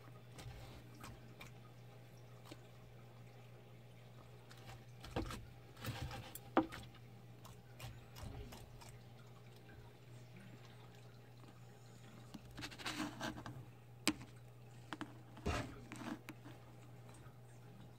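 Savannah monitor eating an earthworm: irregular wet clicks and smacks of its jaws as it swallows, in two clusters with one sharp click near the end of the second, over a steady low hum.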